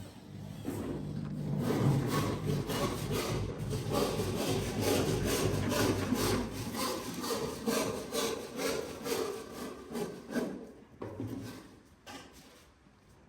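A hand tool works wood in quick rasping strokes that begin about half a second in, go on for roughly ten seconds, then die away.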